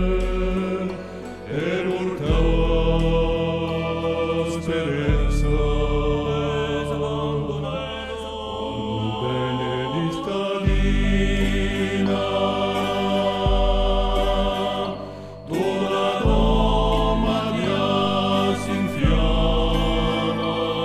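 Background music with sustained, chant-like singing over deep bass notes that change every second or two.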